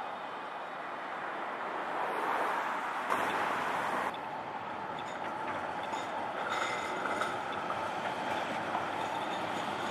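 Low-floor electric tram running past through a street junction over steady city traffic noise, with a faint high whine from its running gear in the second half.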